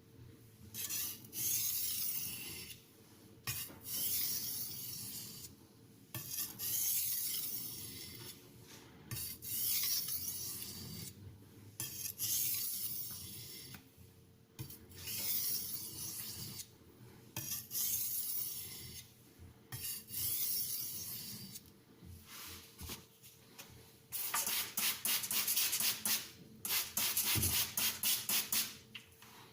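Steel knife blade scraping across a fine-grit (FEPA 1500 / JIS 6000) Haidu aluminium oxide sharpening stone: long hissing strokes every two to three seconds, then a faster run of short strokes near the end.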